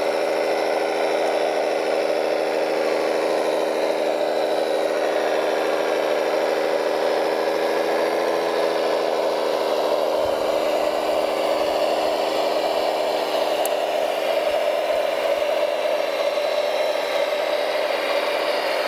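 Electric drive motors and gearboxes of radio-controlled model trucks whining steadily, with a slight dip and recovery in pitch about eight seconds in.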